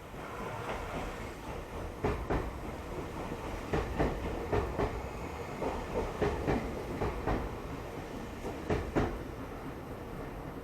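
Tobu Railway electric train running past on the rails, its wheels clacking over rail joints in quick pairs, about once a second, over a steady low rumble.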